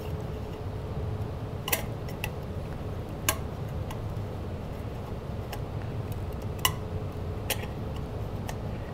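Steel locknut and conduit connector clicking against the steel electrical box as the ring is turned tight by hand, with pliers gripping the fitting: several sharp metallic clicks at irregular moments over a steady low hum.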